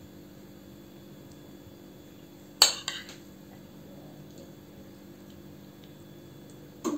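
Metal cutlery clinks sharply against a ceramic plate about two and a half seconds in, with a second, softer clink right after, over a faint steady hum.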